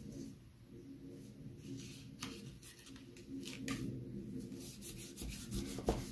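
Hands pressing and rubbing a cardstock panel flat onto a card base: a soft papery rustle with a few light taps, the loudest near the end, over a faint steady low hum.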